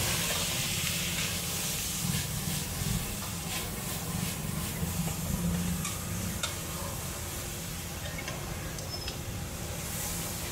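Food frying with a steady sizzle, with a few light clicks through it.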